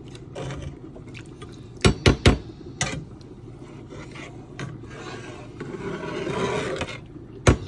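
A spoon scraping and knocking against a cooking pot while gravy is stirred: three sharp knocks about two seconds in, a stretch of scraping a few seconds later, and three more quick knocks near the end.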